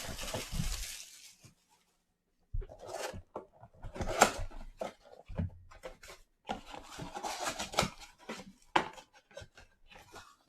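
A sealed box of trading cards being unwrapped and opened by hand: irregular rustling and crinkling of plastic wrap and cardboard, with scattered light taps and clicks as the packs are handled. A brief full silence comes about two seconds in.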